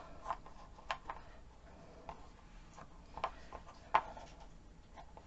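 Wooden clothespin halves clicking and tapping as they are handled and pressed together. There are a handful of light, scattered clicks, the loudest about four seconds in.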